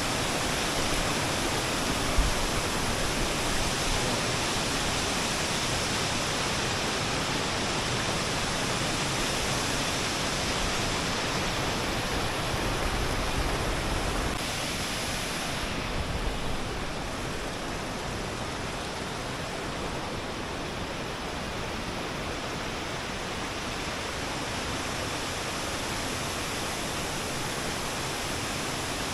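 Waterfall: a steady rush of falling water that turns a little softer and duller about halfway through, with a brief bump about two seconds in.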